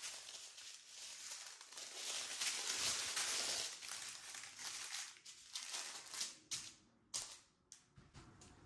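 Crinkling of small plastic bags of diamond painting drills as strips of them are handled and laid out, loudest in the first half, then breaking into a few shorter rustles.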